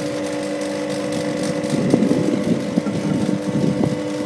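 Steady hum of running refrigeration plant machinery, holding a few fixed tones. From about two seconds in, irregular clattering and knocking of handled metal parts sounds over it.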